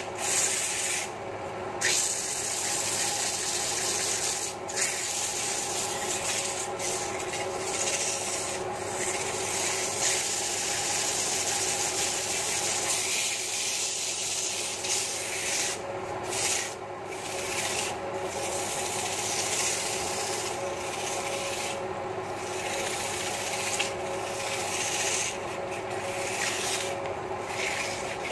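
Hand-held sandpaper rubbing against a large wooden stool blank spinning on a wood lathe: a steady rasping hiss that drops out briefly now and then as the paper lifts off. Under it runs the lathe's steady hum.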